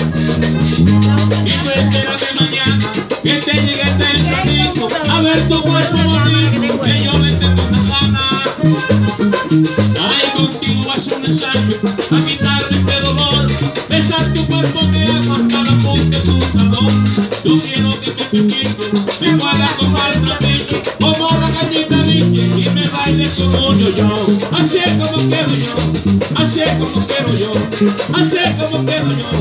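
Live vallenato band music: a button accordion plays the lead over a beating bass line and a hand drum.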